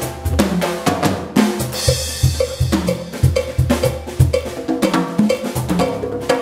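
Live percussion from congas and a drum kit, a busy run of hand and stick strikes with a cymbal crash about two seconds in, over an electric bass guitar line.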